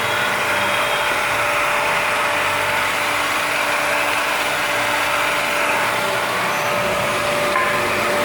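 Multi-spindle drilling machine's motor running steadily, a continuous mechanical noise with one steady whine.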